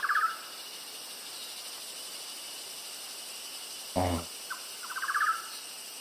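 Whitehead's broadbill giving a short, rapid pulsing trill that rises slightly, once at the very start and again about a second before the end. A steady high insect drone runs underneath.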